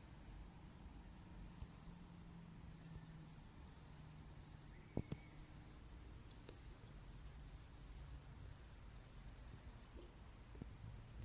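Faint, high-pitched insect trilling in repeated bursts of about half a second to a second and a half, over a low background rumble, with two soft clicks about five seconds in.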